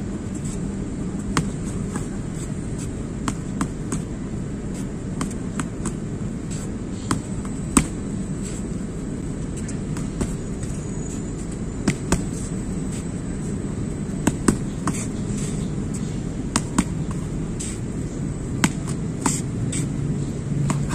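Boxing gloves smacking against focus mitts in short combinations of two or three punches, with pauses between. Under them runs a steady low background rumble.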